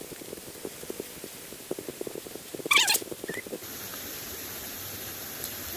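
Footsteps crunching on a gravel and dirt trail, with a brief, loud, shrill sound about three seconds in. About half a second later the background changes abruptly to a steady high hiss.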